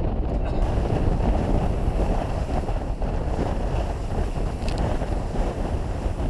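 Heavy wind buffeting the microphone over a boat running under way through rough, choppy seas, a steady loud rushing noise mostly in the low range.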